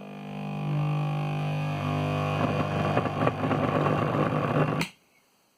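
A soft starter and the motor it drives giving a loud, deep electrical hum that builds over the first second, turns rough and crackly about halfway through, then cuts off suddenly near the end: the sign of an SCR in the soft starter misfiring.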